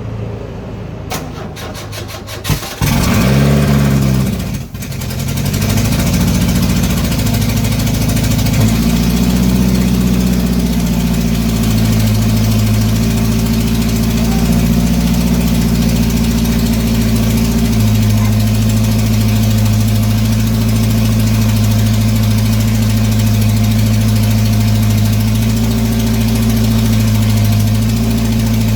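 Freshly rebuilt GM 2.2-litre four-cylinder engine cranking on the starter, catching about three seconds in, then running loud and steady at high speed. The throttle is stuck wide open because the throttle cable has come off.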